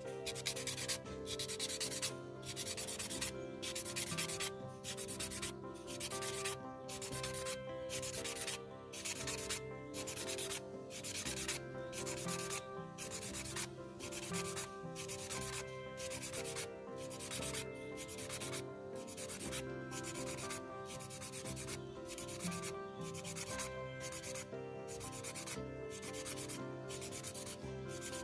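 A wooden chopstick end rubbed back and forth on an abrasive to shape it to a point. The scraping strokes are even and rhythmic, about one and a half a second.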